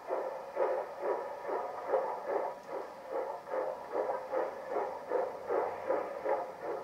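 Steam locomotive chuffing: a steady, even rhythm of exhaust beats, about two and a half a second.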